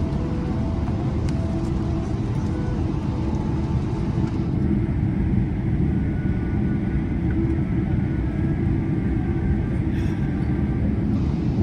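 Cabin noise inside a Boeing 777 rolling on the ground after landing: a steady low rumble from the engines and the wheels on the pavement. The higher hiss above the rumble thins out from about four seconds in until near the end.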